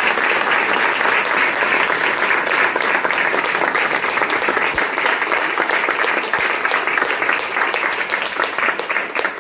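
Applause from a small seated audience, steady and then tailing off near the end.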